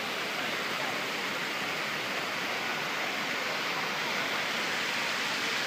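Steady rushing noise, like running or falling water, with faint voices under it.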